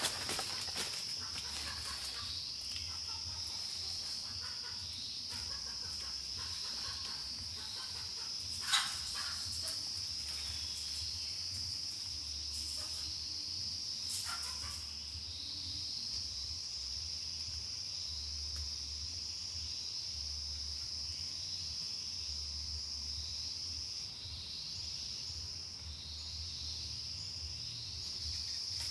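Steady high-pitched drone of forest insects with a chirp repeating through it. Two sharp snaps of twigs underfoot come about a third of the way in and again about halfway.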